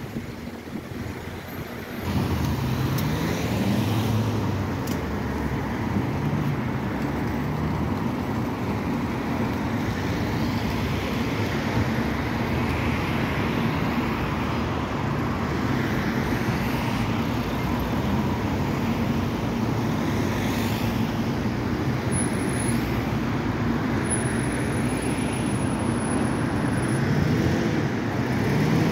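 Road traffic, then about two seconds in the diesel engine of a Wright Gemini 1 double-decker bus close by as it pulls away and turns. Its engine note rises as it accelerates, then holds fairly steady.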